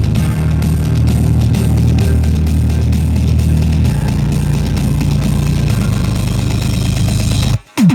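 Bass-heavy rock music with guitar and a deep sustained bass line. Near the end it cuts out for a moment, then deep bass notes begin sliding down in pitch.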